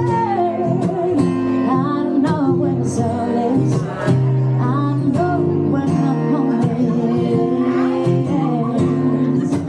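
Music: acoustic guitar playing chords with a wordless sung or melodic line winding over it.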